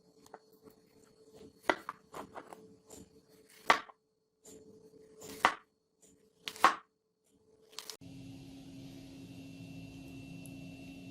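Restored knife chopping down onto a cutting surface: several sharp chops a second or two apart. About eight seconds in they stop and a steady hum takes over.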